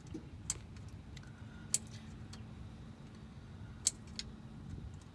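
A few sharp, scattered clicks and ticks, about four clear ones, as the small plastic electrical connectors on a car's starter motor are pried and worked loose by hand and with a tool, over a faint low hum.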